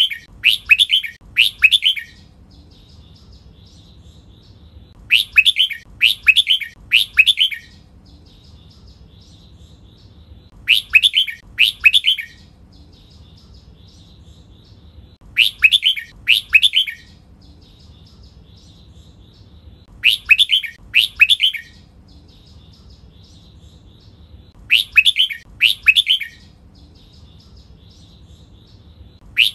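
Red-whiskered bulbul singing the same short, loud phrase of three or four quick notes over and over, about every five seconds, with soft chirping in between.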